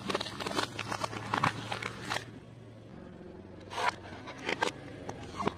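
Car tyre rolling over and crushing small objects: a run of crackling crunches for about two seconds, then a brief burst of crunching about four seconds in, and more crackling starting near the end.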